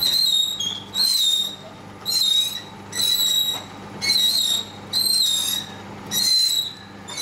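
Rope pulley on a steel hoisting tower squeaking as a long PVC rocket tube is hauled up. The squeaks are high-pitched, about half a second long and come about once a second, in time with the pulls on the rope.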